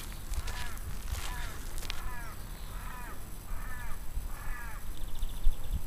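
A bird calling about six times in a row, short calls that each rise and fall in pitch, spaced under a second apart.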